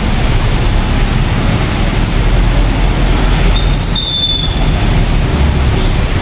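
Loud, steady rumbling noise, with a brief high-pitched squeal about four seconds in.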